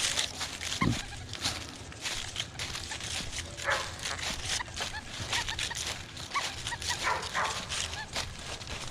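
XP Deus metal detector with an HF coil in pitch-tone mode, giving repeated short chirping tones that bend in pitch as the coil sweeps over targets in the ground.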